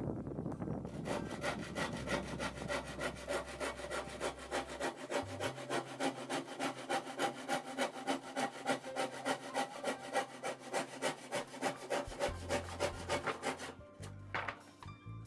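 Hand saw cutting through wood in fast, even back-and-forth strokes that stop shortly before the end.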